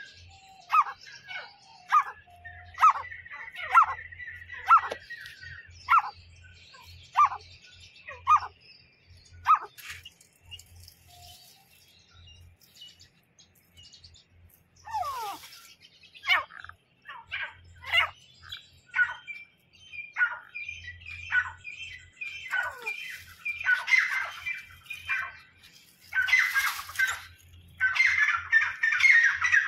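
Wild partridge (teetar) calling: a series of short, sharp notes that sweep downward, about one a second, then a pause. The calls return faster and run together into a dense chatter near the end.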